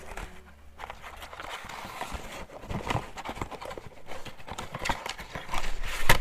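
Irregular clicks and light knocks of hands handling PC fan and LED cables and plastic connectors, with a sharper click near the end.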